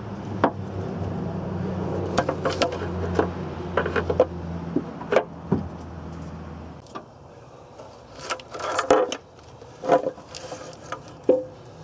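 Scattered metal clicks and knocks as the valve cover of a Caterpillar 3126 diesel engine is worked loose and lifted off by hand. Under them a steady low hum stops about seven seconds in.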